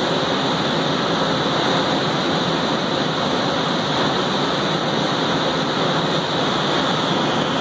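Miyano LM-21 four-spindle CNC turning center running with its spindles spinning the chucks, a steady, even machine whir and hiss that does not change.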